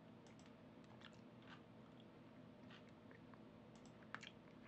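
Near silence with a low steady hum and faint, scattered computer mouse clicks, one louder click about four seconds in.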